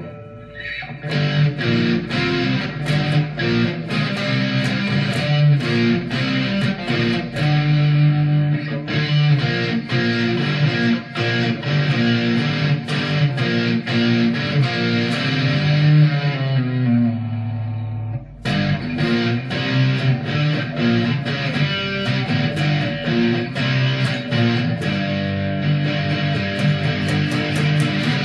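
Eclipse CX-S036SB Les Paul-style electric guitar with two humbuckers, played with a pick through an amplifier: a stream of quickly picked notes, with a short break about two-thirds of the way in before the playing picks up again.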